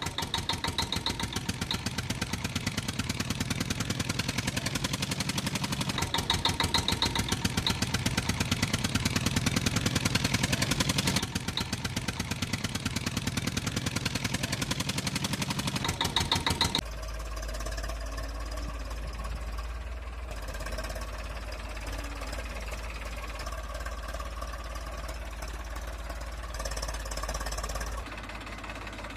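Tractor engine sound effect running with a fast, even knock. A little past halfway it cuts abruptly to a quieter, deeper engine hum.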